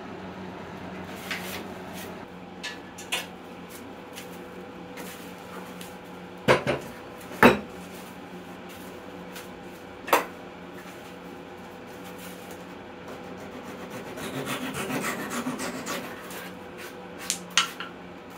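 Bar clamps being loosened and taken off a glued-up dovetailed wooden box, with a series of sharp metal-and-wood knocks and clanks, the loudest about halfway through. Later, a couple of seconds of wood rubbing and scraping as the box is handled on the workbench.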